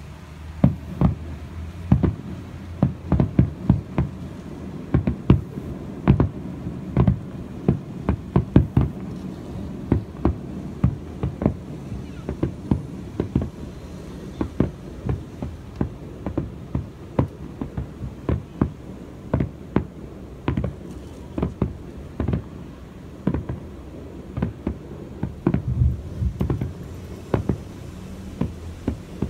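Aerial firework shells bursting in a rapid, irregular barrage of booms, often several a second: a fireworks display's finale.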